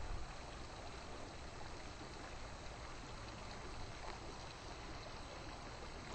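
Faint, steady hiss of outdoor background noise, with no distinct event in it.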